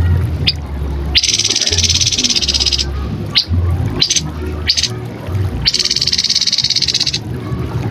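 Grey-headed babbler calling: several short, sharp high notes, with two long stretches of dense high buzzing around them and a steady low rumble underneath.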